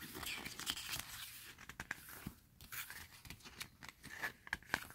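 Glossy pages of an album photobook being handled and turned: crisp paper rustling with a string of sharp paper clicks and snaps, the loudest near the end.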